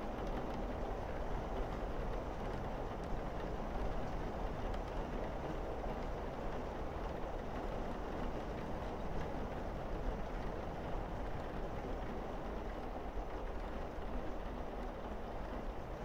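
Steady rain falling on a roof and windows: an even rushing hiss with a low rumble underneath, no separate drops or thunder standing out.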